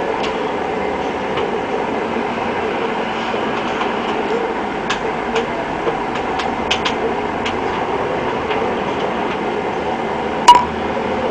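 Syma S107 toy helicopter's small electric coaxial rotor motors running steadily with a whirring hum, with scattered light ticks and one sharp click about ten seconds in.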